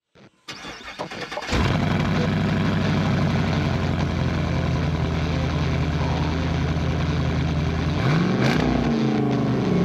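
GM 6.2 L Gen 5 LT1 V8 engine in a Jeep Wrangler cranking and catching about a second and a half in, then idling steadily. Near the end it revs, rising in pitch.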